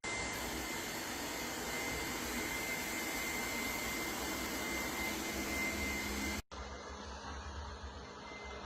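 Lefant robot vacuum running steadily: an even motor-and-suction noise with a thin high whine over it. About two-thirds of the way through it breaks off abruptly and carries on quieter.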